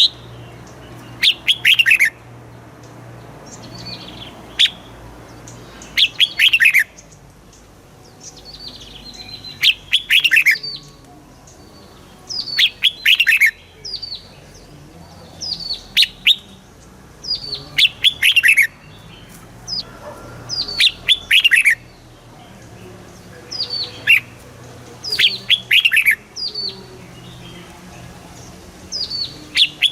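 Red-whiskered bulbul singing: short, loud phrases of quick notes falling in pitch, repeated every two to three seconds.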